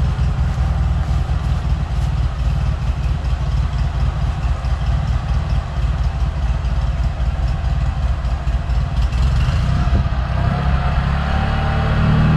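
Engine of a Toro 616Z zero-turn mower running steadily. It grows louder with a clearer engine note in the last couple of seconds as the mower drives toward the gate.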